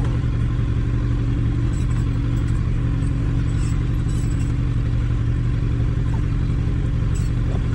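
Kawasaki Ninja 1000's inline-four engine running steadily at low revs, with no rise or fall in pitch.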